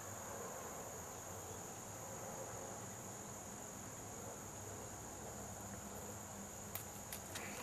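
Steady, high-pitched buzzing of an insect chorus, with a few faint clicks about seven seconds in.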